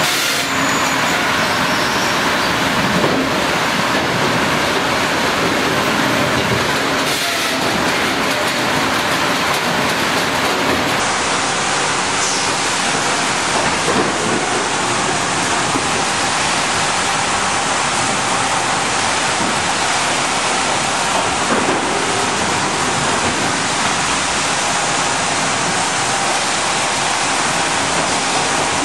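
Sawmill log-handling machinery running: chain conveyors, a rotary log kicker and log decks moving logs, a steady dense clatter and rumble of chains and wood. The sound changes character about eleven seconds in, where one machine gives way to another.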